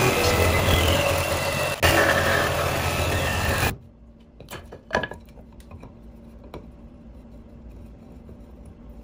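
Jigsaw cutting through an ipe hardwood axe-handle blank clamped in a bench vise. It runs loud and steady for about three and a half seconds, then stops abruptly. A few light wooden knocks follow as the cut blank is handled on the bench.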